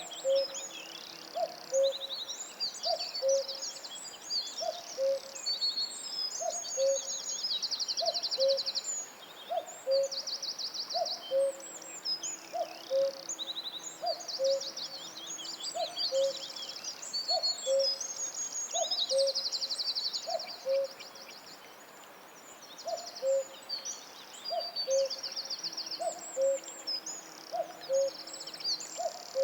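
Forest bird chorus: fast high trills and chirps from songbirds over a low, two-note hoot that repeats about once a second. The high songs pause briefly about three-quarters of the way through while the hooting carries on.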